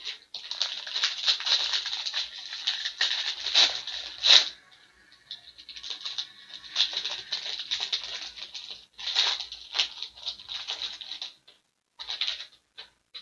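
Plastic packaging crinkling and rustling in the hands, in irregular crackly bursts. There is a short lull about five seconds in, and a few separate crackles near the end.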